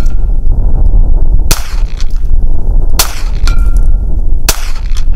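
Three .22 LR shots from a Volquartsen Scorpion pistol, about a second and a half apart, over a steady low rumble of wind buffeting the microphone. Twice a faint ringing tone follows about half a second after a shot: the distant steel plate being hit.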